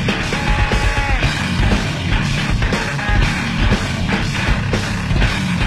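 Rock music playing, an instrumental stretch without singing, with a steady driving beat.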